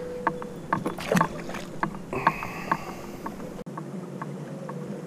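Water lapping and ticking against the hull of a bass boat, light irregular ticks over a steady hum. The low rumble cuts out suddenly about three and a half seconds in.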